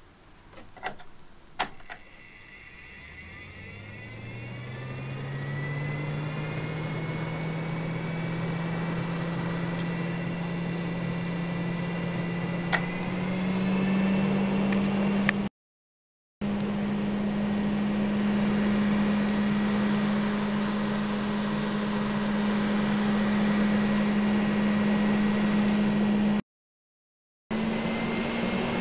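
Newly installed roof vent fan switched on after a couple of clicks, its motor hum rising in pitch as the blades spin up. About halfway through the pitch steps up again and the fan then runs steadily.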